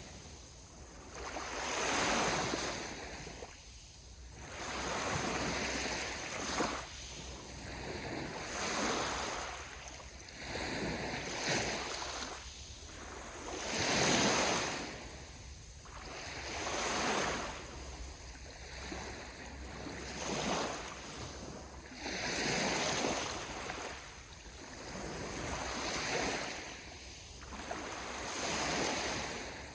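Sea waves washing onto the shore, each surge swelling and falling back about every two to three seconds.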